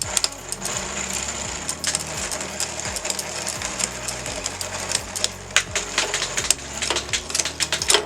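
Irregular metallic clicks and rattles of a bicycle chain being handled and worked on, its steel links knocking together.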